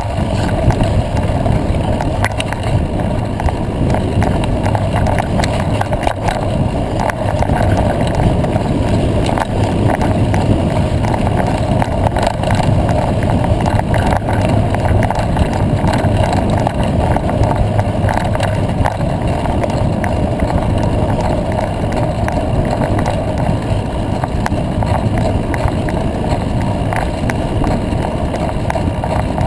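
Steady rush of a mountain bike rolling fast over a dirt road, heard through its mounted camera: wind buffeting the microphone over the hum of tyres on dirt, with frequent small rattles and clicks.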